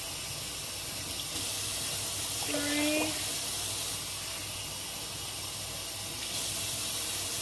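Kitchen tap running, measuring out water for boiling pasta, its flow changing about a second and a half in and again near the end. About two and a half seconds in, a brief pitched sound of about half a second stands out over the water.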